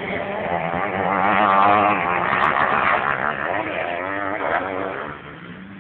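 Motocross bike engines revving hard, their pitch rising and falling with the throttle. Loudest between about one and three seconds in, then fading near the end.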